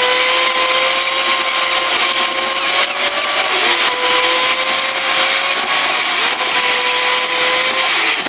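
Car engine and road noise from inside the cabin, sped up along with fast-forwarded driving footage, so that it becomes a steady high whine with a second, higher tone over an even hiss. The pitch dips briefly twice.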